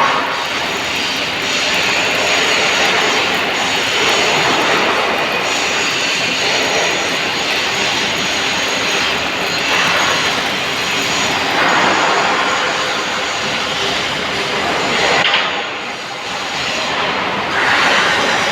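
MIG welding arc crackling steadily as a panel is welded, with a short break in the arc late on.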